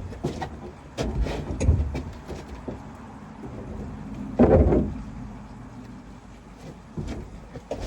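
Outboard motor being cranked in a short start attempt about four and a half seconds in that does not catch, among clicks and knocks of handling.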